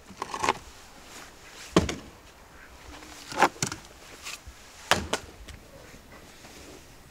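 Heavy wooden logs knocking and thudding as they are pulled off a woodpile and dropped on dirt ground: four sharp knocks, some doubled, roughly a second and a half apart.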